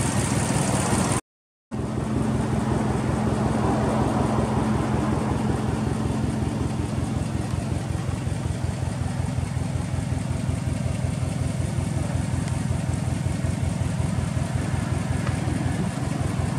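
Subaru Impreza WRX's EJ20 turbocharged flat-four, with an aftermarket muffler, idling steadily with an even low pulse. The sound cuts out briefly about a second in, then the idle carries on unchanged.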